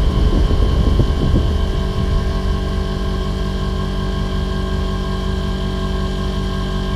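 TCL ductless split air conditioner's outdoor unit running: the compressor hums with a steady set of tones while the condenser fan runs, and a low rumble is stronger for the first two seconds.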